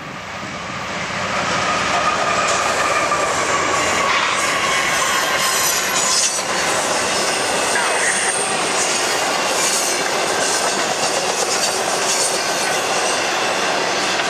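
Freight train passing, louder over the first two seconds as the head end approaches, then a steady rolling din as intermodal container and trailer cars go by. Wheel clatter on the rails, with thin high-pitched squeals from the wheels.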